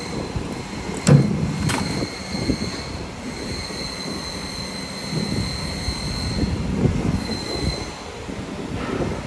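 A CNC camless spring forming machine running while it bends 2.6 mm wire. Its servo-driven tool slides give a high whine that comes and goes in spells, and two sharp metallic clacks sound about a second in, over an uneven low mechanical clatter.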